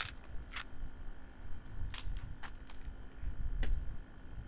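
Several sharp, irregularly spaced clicks over a low rumble, with a faint steady high tone underneath.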